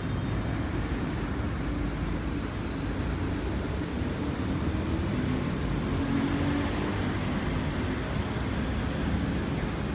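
Steady street noise of road traffic, with a vehicle engine's drone swelling briefly about six seconds in.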